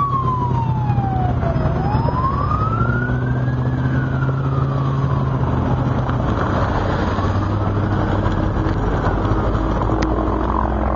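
Emergency vehicle siren wailing in slow up-and-down sweeps, each rise or fall taking about two seconds, growing fainter after about six seconds. A steady low rumble runs underneath.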